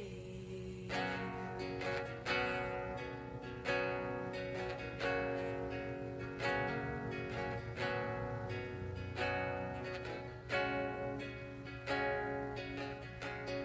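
Instrumental break in a slow romantic ballad: an acoustic guitar strums a chord about every one and a half seconds, each left ringing, over a steady low bass.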